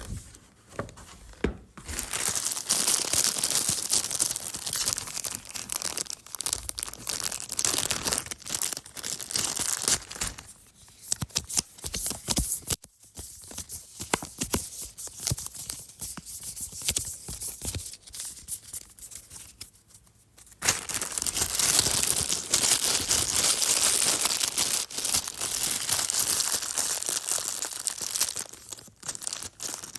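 Monopoly game components being handled, making a dense crinkling, tearing-like rustle full of small clicks. About ten seconds in it eases to scattered clicks and taps, then the loud crinkling returns about twenty seconds in.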